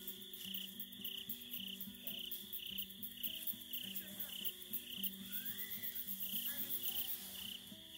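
Background music: low notes stepping through a slow melody under a high chirping pulse that repeats about twice a second.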